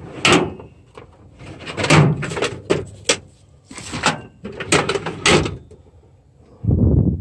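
Metal drawers of a Craftsman tool chest being pulled open and pushed shut, a string of sharp clattering strikes about a second apart, with a heavier dull thump near the end.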